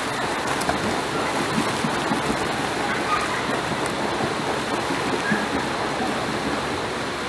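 A swimmer's hard kicking and arm strokes splashing the water, a continuous rushing spatter of small splashes.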